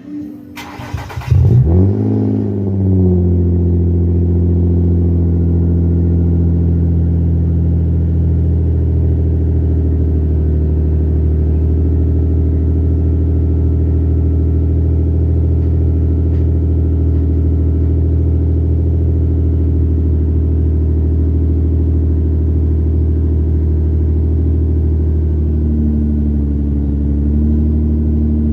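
Nissan Altima SR's 3.5-litre VQ35 V6 starting: it catches about a second in, the revs flare and fall back within a couple of seconds, then it settles into a steady idle. The idle note wavers slightly near the end.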